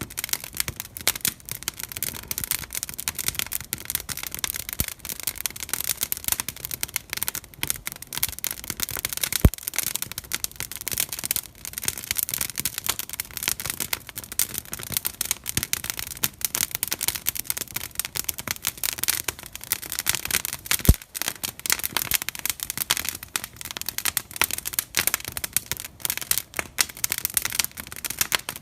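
Wood fire crackling with a dense, irregular run of small pops and snaps, and twice a single louder sharp pop.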